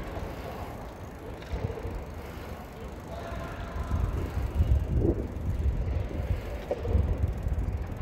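Wind buffeting a handheld phone's microphone: a gusty low rumble that grows louder about halfway through, with faint distant voices.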